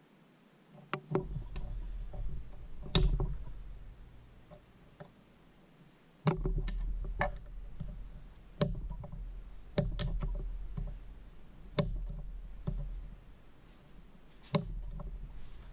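A steel pick prying at the fifth-gear detent's snap ring in the aluminium case of a ZF 5-speed transmission: about a dozen sharp metal clicks and knocks at irregular intervals as the tool catches and slips, over a low rumble of hands working on the case.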